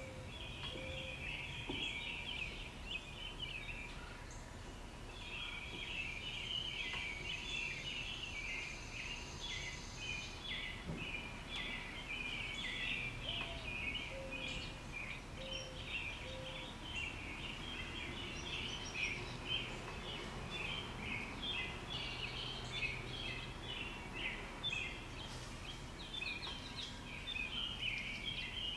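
Woodland chorus of many overlapping high chirps, dense and continuous except for a short lull about four seconds in, over a low outdoor background rumble.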